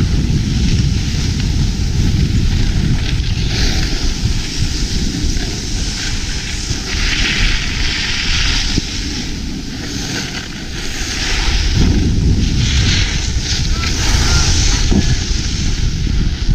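Wind buffeting a moving microphone over skis and a loaded rescue toboggan sliding down packed snow. There is a low rumble throughout, and several stretches of scraping hiss as the skis and toboggan edge and slide.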